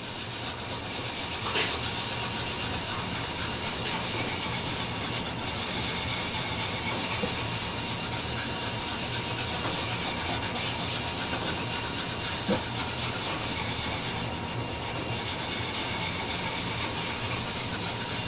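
Cloth rag rubbing light rose leather dye into a flame maple strip: steady rubbing of cloth on wood, with a couple of light taps.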